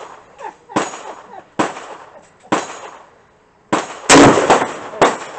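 Gunshots on a shooting range: a string of quieter reports roughly a second apart, then one much louder, sharp rifle shot about four seconds in from the close Century Arms CETME C308 .308 battle rifle, with another report shortly after.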